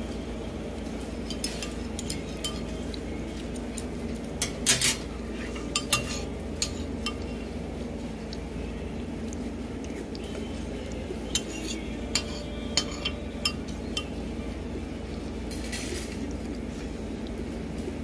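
Dishes and cutlery clinking in scattered, sharp clicks over a steady low background hum, loudest about five seconds in, with another run of clinks around twelve to fourteen seconds.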